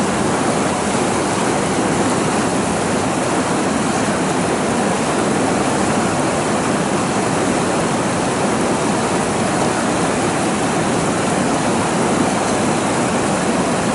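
Fast river water rushing over rapids and round boulders: a steady, unbroken rush.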